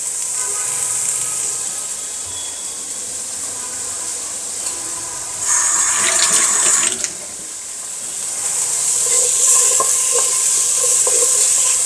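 Cauliflower and carrot pieces sizzling in hot oil in a nonstick pot as they are stir-fried with a wooden spatula; the sizzle swells louder for about a second and a half midway, and a few light spatula knocks come near the end.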